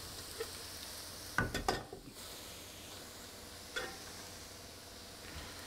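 Fried onions sizzling in a non-stick frying pan, with a few quick clatters of a metal spatula against the pan about one and a half seconds in and another knock near four seconds as the onions are scraped out. The sizzle thins out after about two seconds.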